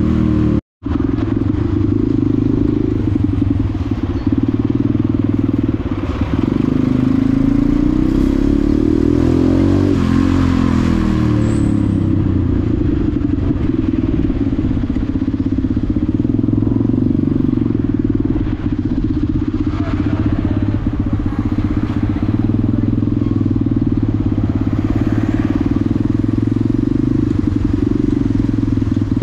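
KTM supermoto motorcycle engine running under way at low speed, with the revs rising and falling with the throttle around the middle. The sound breaks off for a split second just under a second in.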